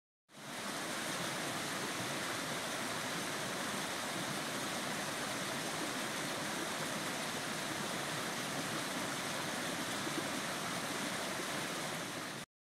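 Shallow stream rushing over and around rocks, a steady rush of water that comes in about half a second in and cuts off suddenly near the end.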